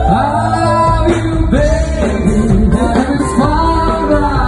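A band playing a pop-rock song: a lead voice sings over guitar and drums.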